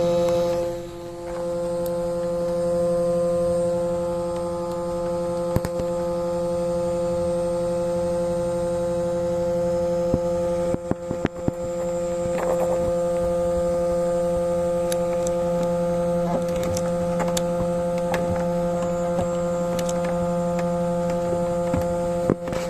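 Faulty car headlight giving off an abnormal steady buzzing hum, one constant pitched drone. It dips briefly about a second in, and a few clicks sound near the middle.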